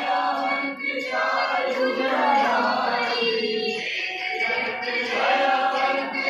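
Group of voices singing a Hindu devotional hymn together, an aarti sung while a lamp plate is waved over the havan fire.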